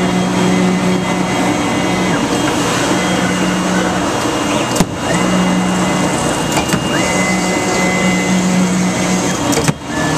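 2013 Autometrix Advantage plotter/cutter working: its drive motors whine in repeated stops and starts as the gantry and cutting head move across the table, over a steady rushing noise. A sharp click comes about five seconds in.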